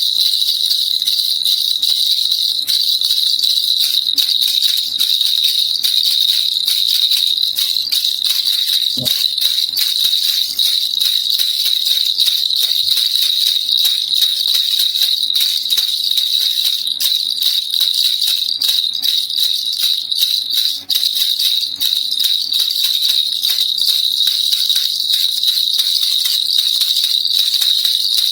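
Baby rattle (kilukilupai) shaken continuously: a dense, fast, unbroken rattling with a steady bright ring on top.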